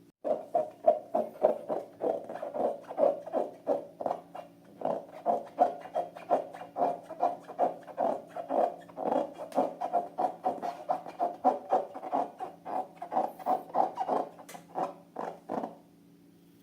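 Slime being squeezed and kneaded by hand: a steady run of wet squishes and sticky clicks, about three a second, stopping shortly before the end.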